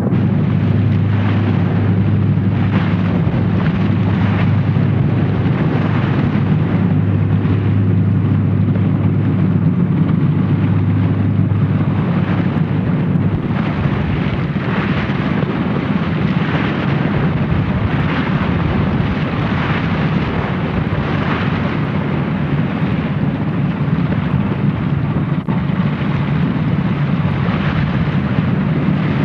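A small motorboat's engine running steadily with water rushing against the hull as the boat crosses waves; the rush swells and fades every second or two, and the low engine hum eases about halfway through.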